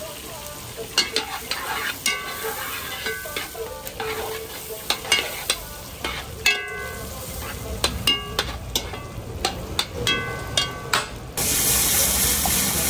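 A spoon stirring in a pot over the sizzle of frying food, knocking against the pot in irregular clanks that ring briefly. Near the end, a louder, steady rushing noise cuts in abruptly.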